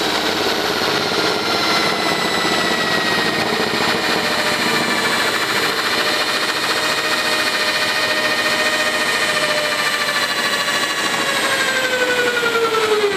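Power drill running at a steady high whine, driving a self-drilling roofing screw through a metal fence picket into the rail. The pitch drops near the end as the screw drills through and is pressed home, then the drill stops.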